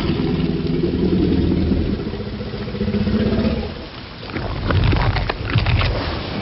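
Film soundtrack of a Tyrannosaurus rex in heavy rain: steady rain with a low, rumbling growl from the animal, then a cluster of sharp cracks about five seconds in.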